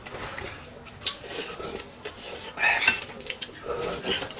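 Metal spoons clinking against glass cups, with a few sharp clinks, mixed with slurping of noodles and sesame paste.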